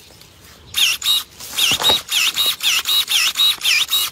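Cordless electric pruning shears working: about ten quick strokes, roughly three a second, starting about a second in. On each stroke the motor's whine dips in pitch as the blades close and rises again as they reopen.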